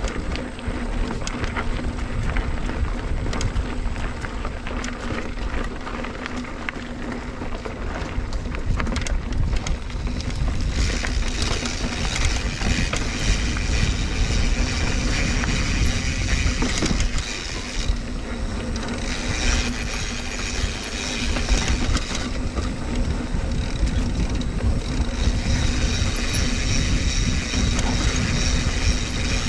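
Mountain bike being ridden on a dirt trail: wind buffeting the bike-mounted or body-mounted microphone, tyres rolling and the bike rattling over the ground, louder from about ten seconds in.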